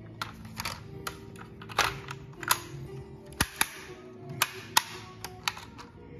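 A dozen or so sharp, irregularly spaced clicks and snaps as the hinged die-cast metal doors, bonnet and tailgate of a 1:24 scale Range Rover model are pushed shut one after another.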